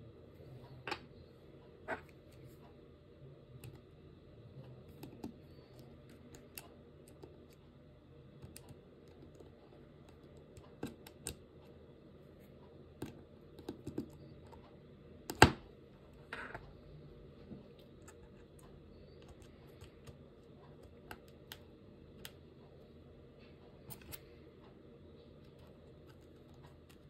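Scattered clicks and taps at a computer, irregular and a second or more apart, with one much louder knock about halfway through, over a faint steady hum.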